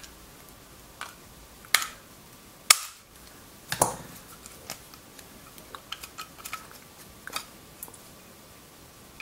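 Sharp metallic clicks and clinks as a flat screwdriver pries at the saw cut in the metal housing of a SICK EFS50 motor feedback encoder and the casing is worked loose. Four louder clicks come in the first four seconds, then lighter ticks.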